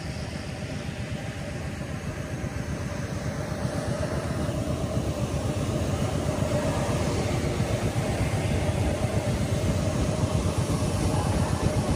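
Isuzu Borneo truck's diesel engine idling, a steady low rumble that grows gradually louder.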